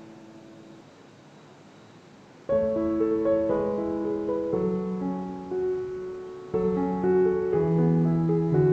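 Background music: a few faint held notes, then a melody of clearly struck notes starts about two and a half seconds in and carries on.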